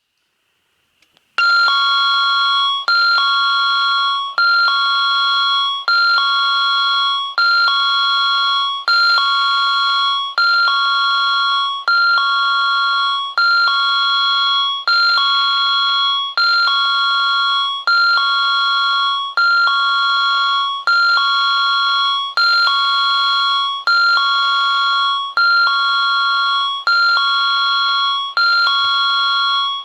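Japanese railway station train-approach warning chime at Isurugi Station, a loud electronic two-tone ding-dong repeating about every second and a half. It signals that a train is approaching the platform. It starts suddenly about a second and a half in.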